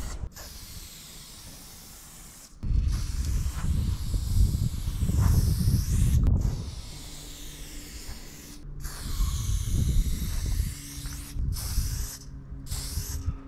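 Aerosol spray-paint can hissing as paint is sprayed in strokes, cut off by brief stops that come quicker near the end, with a low rumble underneath.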